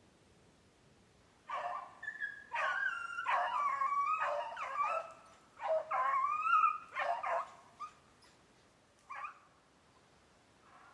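Beagle baying in a series of drawn-out, bending howls, with one short bay near the end: a hound giving tongue while running a snowshoe hare's track.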